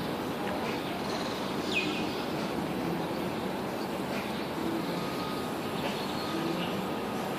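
Steady hum and rumble of city vehicles, with a bird giving a single short falling call about two seconds in.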